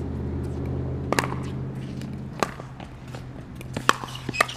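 Pickleball rally: four sharp pocks of the plastic ball coming off paddles and the court, roughly a second apart, the last two close together. Under them runs a steady low hum that fades about halfway through.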